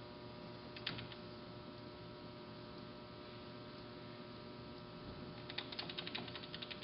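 Quiet shop room tone: a steady electrical mains hum with the lathe stopped. A few faint light clicks come about a second in, and a run of small ticks near the end as a steel rule and the tool are handled against the part.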